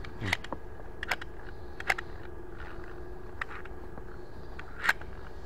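Sharp clicks and light knocks from a cleaned electronic throttle body being handled: about half a dozen scattered taps, the loudest near the end, over a steady low hum.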